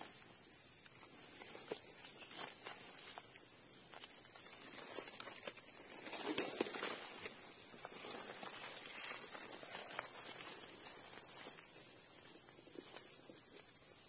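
Insects calling as one steady, unbroken high-pitched drone, over soft rustling and scraping as a knife digs mushrooms out of soil and leaf litter, a little louder about six seconds in.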